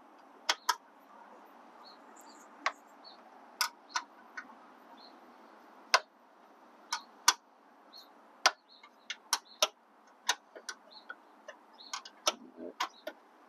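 Scattered sharp metallic clicks, about twenty at irregular intervals, some in quick pairs, as a 12 mm wrench is worked onto and turned on a bolt, over a faint steady hiss.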